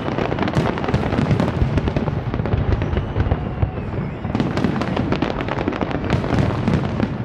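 Large aerial fireworks display: a dense, continuous barrage of shells bursting, with rapid overlapping cracks and pops over a steady low rumble of detonations.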